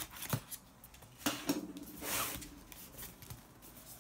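A packaging box being opened by hand: a short sharp click, then about a second of scraping and rustling of the packaging.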